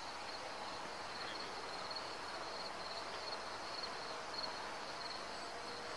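Insects chirping in a steady, pulsing high-pitched chorus over a faint background hiss.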